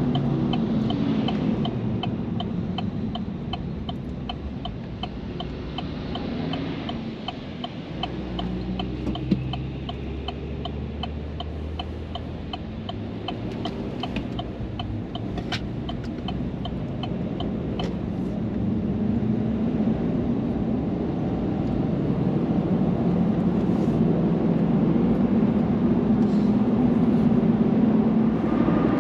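Car driving, with steady road and engine noise. A regular fast ticking runs for about the first eighteen seconds, then stops. The road noise grows louder toward the end.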